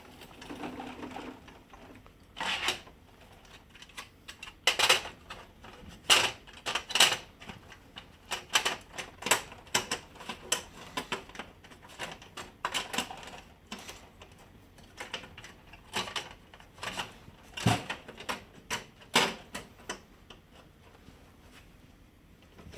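Irregular plastic clicks and knocks as HP LaserJet Pro 400 printer parts are handled and fitted by hand, dense through the middle and stopping a few seconds before the end.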